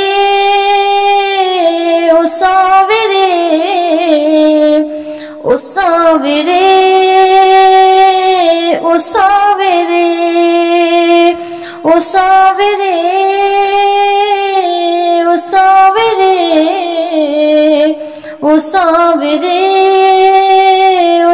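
Hindi devotional bhajan interlude: a woman's voice sings a wordless melody in long held notes that slide between pitches. It breaks off briefly about every six seconds.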